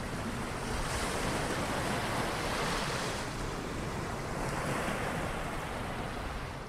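Steady rushing noise like surf and wind, a sound effect under an animated logo intro. It fades out near the end.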